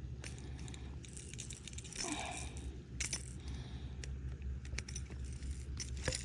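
Scattered light clicks and metallic jingling of fishing tackle being handled, the lure's hooks rattling while a freshly caught bass is unhooked, over a steady low hum.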